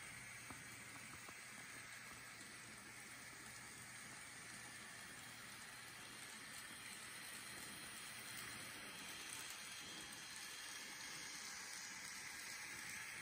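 Faint, steady hissing whir of a model passenger train rolling along its track, pushed by its locomotive, growing slightly louder in the second half.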